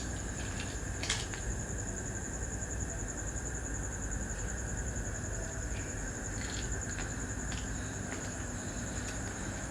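Night insects, crickets, chirring in a steady high-pitched drone, with a few faint clicks and knocks scattered through it; the sharpest comes about a second in.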